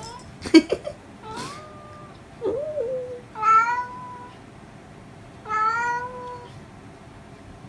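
Domestic cat meowing over and over: about five short, chatty meows that bend in pitch, the loudest about three and a half seconds in. A few sharp clicks come about half a second in.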